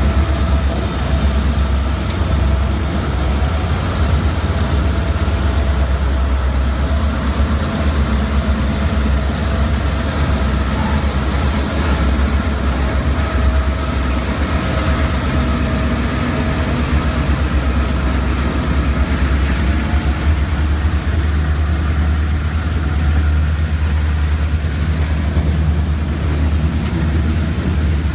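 Freight train passing close by: the diesel locomotives' engines give a steady, loud low rumble, and the tank cars behind them roll by on the rails.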